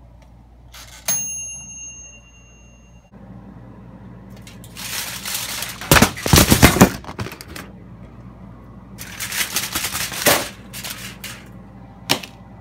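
Toaster oven's timer bell dings once about a second in as its dial is turned, ringing for a couple of seconds. Two long stretches of loud clattering and rustling follow, and a sharp click comes near the end.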